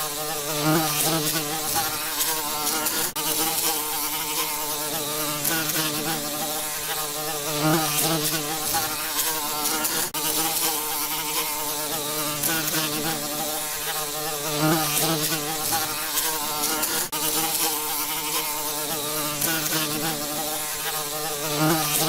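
Bees buzzing in flight: a steady droning hum whose pitch wavers slightly, swelling a little about every seven seconds. Three times there is a brief dropout in the sound.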